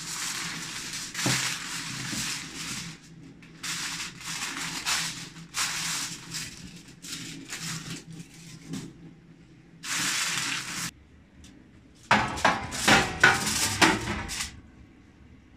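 Aluminium foil crinkling and crackling in repeated bursts as it is torn off the roll and pressed down around the rim of a glass baking dish. Near the end comes a louder stretch of crackle and sharp clatter as the foil-covered dish goes onto the oven rack.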